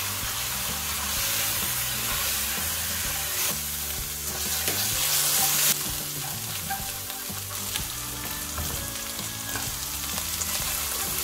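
Blended spice paste sizzling steadily in a hot stainless-steel frying pan as it is stirred and scraped around with a silicone spatula, its blender water frying off. The sizzle is loudest about five seconds in.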